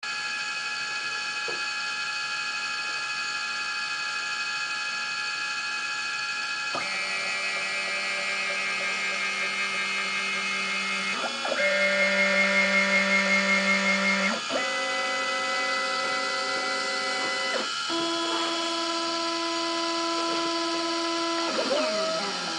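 CNC mini mill carving a wax ring blank on its rotary axis: its stepper motors whine at steady pitches that jump to a new pitch every few seconds as the feed moves change, over the steady hum of the spindle. Near the end the pitches slide briefly as the motors speed up and slow down.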